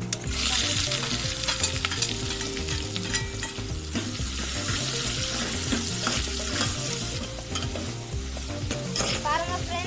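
Sliced onions hitting hot oil with whole spices in a metal pot: a loud sizzle that starts all at once and eases after about seven seconds. A steel spoon clinks against the pot as the onions are stirred.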